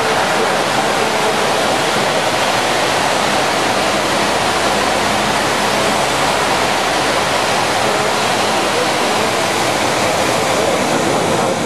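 Loud, steady rushing, hissing noise from the fountain show's water and fog effects as the set sinks, like rushing water.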